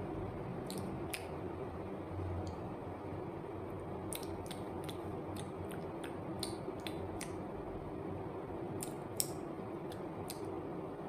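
Wet mouth clicks and smacks of someone chewing soft banana with chocolate sauce close to the microphone, coming in quick clusters, over a steady low background hum.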